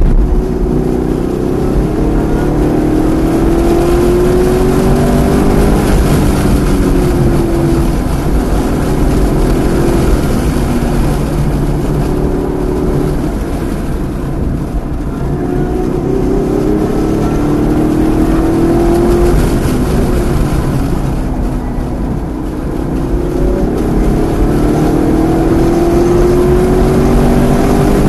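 Chevrolet V8 performance car's engine heard from on board at speed on a track: three long full-throttle pulls rising in pitch, with the engine easing off between them as the car slows for corners, over wind and tyre noise.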